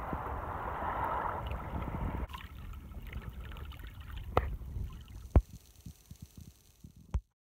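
Choppy sea splashing and washing around a sea kayak, with wind on the microphone. After about two seconds it switches abruptly to quieter water lapping with a few sharp knocks, the loudest about four and five seconds in. The sound cuts off shortly before the end.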